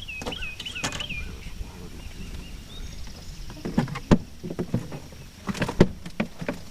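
Knocks and clatter of gear against a fishing boat, in two clusters, loudest about four and six seconds in. A quick run of high chirps comes in the first second.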